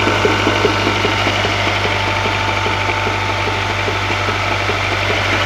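Honda F22B1 2.2-litre four-cylinder engine running with a regular knock, about three a second, over a steady hum. The owner suspects the rear balance shaft, with play in it.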